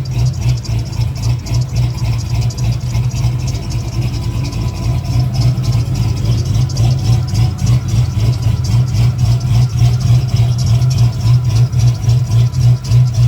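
A Chevy's new Blueprint engine idling steadily, with a thin whine from its accessory drive belt, which the owner thinks is too short and due for replacement.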